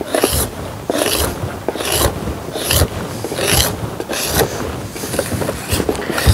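Palette knife scraping debris and wax residue off a white beehive varroa board in repeated strokes, about eight of them, a little more than one a second.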